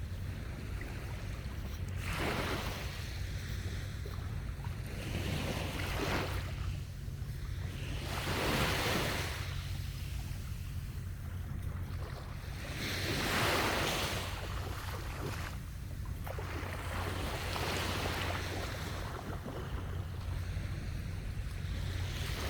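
Small sea waves breaking and washing up on a sandy beach, swelling and fading every few seconds, with a steady low rumble of wind on the microphone.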